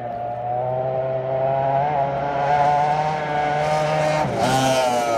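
2.5-litre racing outboard on a tunnel-hull race boat running flat out with a steady high engine note. About four seconds in the note briefly dips and picks up again as the boat passes close, with a hiss of spray.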